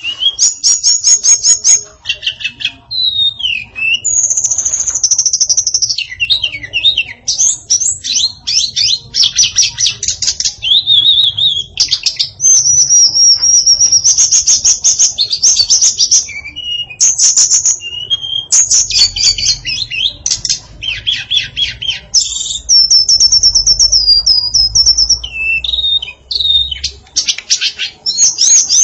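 Female tledekan singing a fast, varied song of chirps, rapid trills and high whistles, phrase after phrase with only brief pauses, over a faint low hum.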